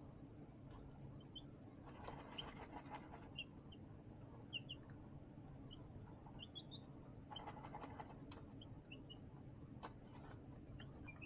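Faint, scattered short cheeps of young chicks, with two brief bursts of scratchy rustling as chicks scratch and move on the brooder's pad liner, over a low steady hum.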